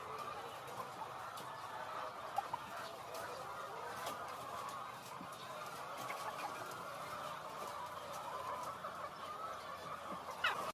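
A flock of chickens clucking and calling together, a steady, continuous din of many overlapping birds.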